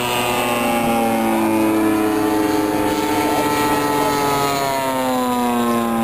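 Engine of a radio-controlled model Texan airplane in flight, a steady pitched drone whose pitch slides lower about a second in and again near the end as it flies past.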